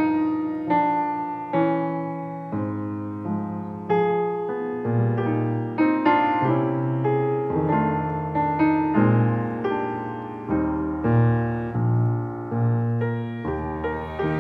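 Background music: a slow solo piano piece, single notes and chords struck one after another and left to ring out.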